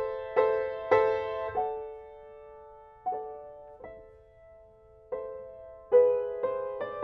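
Solo piano music: struck notes and chords ringing and dying away, thinning to a few long-held notes in the middle before new chords come in near the end.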